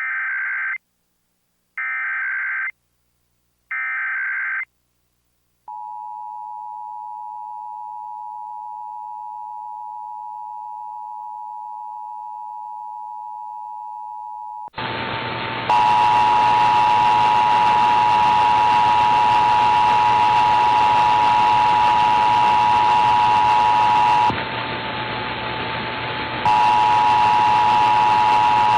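Emergency Alert System test from a Sage Digital ENDEC: three short warbling SAME data header bursts, then the steady two-tone attention signal. About 15 seconds in, the two tones come back louder over heavy hiss, cutting out briefly near the end.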